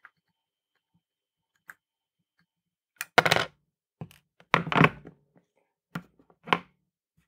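Quiet for about three seconds, then a run of sharp thunks and knocks on a tabletop, the loudest around the middle: the circuit board and hand tools knocking on the bench as a stuck through-hole LED is desoldered and freed.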